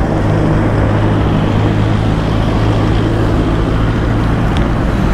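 An engine running steadily with an even low hum, over an irregular low rumble.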